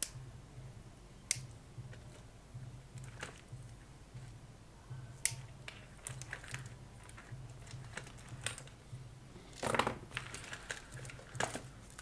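Zip ties being snipped off wiring bundles: a series of sharp, separate clicks, with a louder cluster of snips and handling about ten seconds in, over a faint pulsing low hum.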